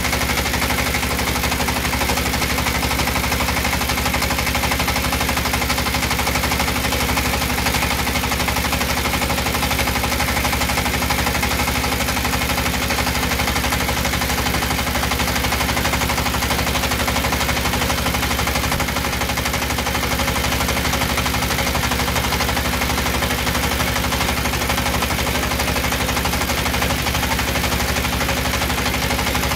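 Belt-driven puffed-snack screw extruder running steadily under load, a rapid, even mechanical clatter that does not change, as it pushes out a continuous puffed rope.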